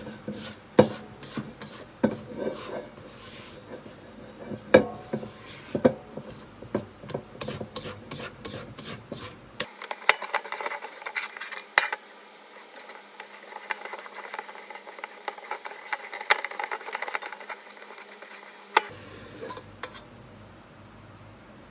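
Kitchen utensil scraping and rubbing rapidly and repeatedly, with sharp taps mixed in, while ingredients are worked. The scraping thins out about halfway through and turns quieter near the end.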